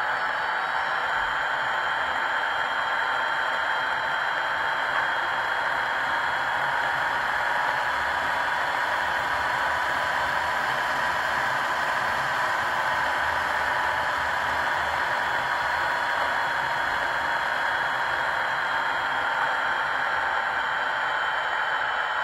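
Piko H0 model of a class 240 'Laminátka' electric locomotive on a roller stand, its factory-fitted sound decoder playing a steady electric-locomotive running sound: a whine that rises slightly in pitch at the start and then holds, over a steady hiss.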